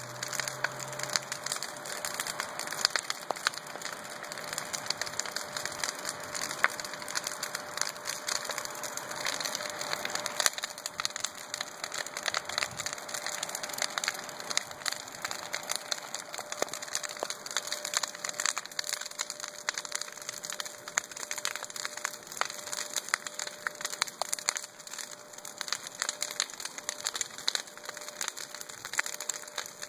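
Large bonfire of lumber boards and brush burning, crackling and popping without pause, with many sharp snaps over a steady rushing hiss.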